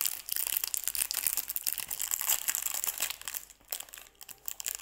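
Clear plastic candy wrapper crinkling as it is handled and pulled off a candy necklace of pink candy beads. The crackle is dense, then dies down about three and a half seconds in.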